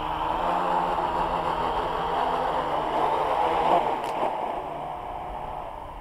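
AEE AP10 Pro quadcopter's motors and propellers buzzing as it comes down low over grass, the pitch wavering as the motors change speed. A brief knock about four seconds in as it touches down, then the buzz fades.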